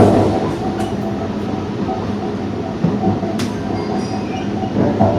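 Mumbai 4xxx-series electric multiple unit heard from inside its motor coach while running: a steady traction-motor hum over the rumble of wheels on rails, with one sharp click about three and a half seconds in.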